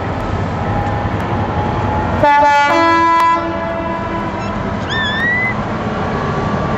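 A train's horn sounds once for about a second, stepping from one note to a second partway through, over the steady rumble of the train crossing the viaduct. A short rising bird call follows a couple of seconds later.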